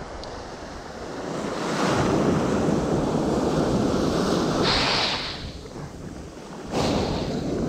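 Ocean surf on a beach: a wave swells, breaks and washes up over several seconds, then another surges in sharply near the end, with wind buffeting the microphone.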